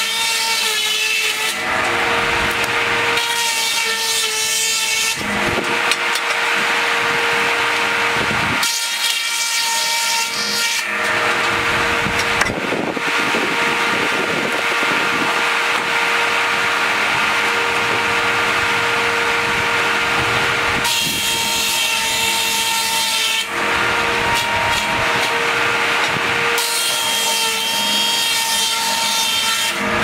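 Large circular saw blade of a sawmill breast bench running steadily with a constant hum, ripping Douglas fir boards about five times. Each cut lasts two to three seconds and brings a harsher, high ringing whine; between cuts the blade spins freely.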